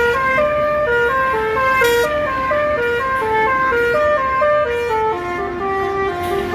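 Bus 'telolet' musical horn playing a quick tune of short stepped notes, up and down about four a second, the tune moving lower about five seconds in, with a low rumble underneath.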